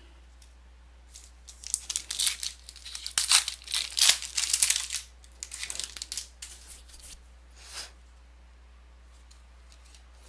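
A trading card pack's wrapper being torn open and crinkled: a run of ripping and rustling, loudest in the middle, dying away a couple of seconds before the end.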